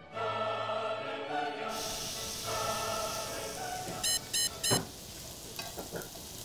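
Thin-sliced beef brisket sizzling on a tabletop grill, under background music that stops about two and a half seconds in. Three quick electronic beeps come about four seconds in.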